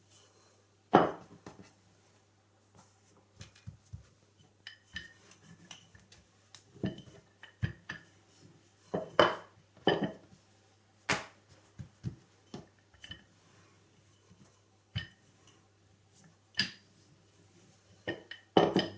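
Irregular knocks and clatters of a rolling pin against a wooden board as a ball of flatbread dough is rolled out thin into a round wrap. The loudest knock comes about a second in, with a cluster of heavier ones about halfway through.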